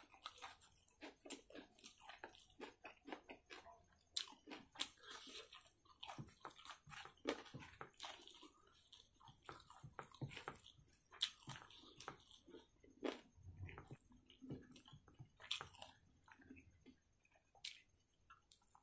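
Close-up chewing and wet mouth sounds of a person eating rice by hand, with many irregular sharp smacks.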